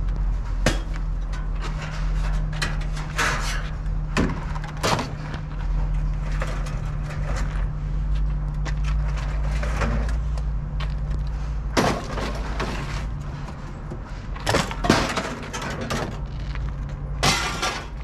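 Pieces of scrap metal being thrown off a pickup truck onto a scrap pile, landing in a series of irregular clattering crashes over a steady low hum.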